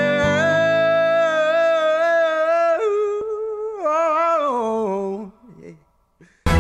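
Music: a solo wordless vocal holds one long note, steps down, then sings a falling phrase and fades away. After a brief gap, loud band music cuts in right at the end.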